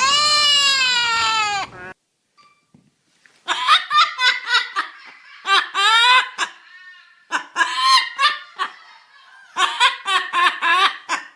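A high-pitched, wailing cry that breaks off under two seconds in, then, after a pause, four bouts of rapid, high-pitched laugh-like calls.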